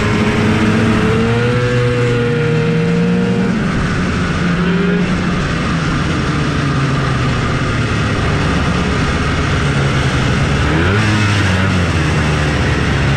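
Two-stroke snowmobile engines running at low speed: the 1980 TX340's own engine, with other race sleds idling and revving around it. Several engine tones sound at once. One rises about a second in, and others rev up briefly near the end.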